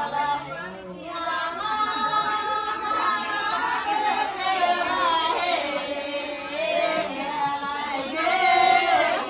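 A group of women singing a wedding folk song together, several voices overlapping in long, wavering held notes.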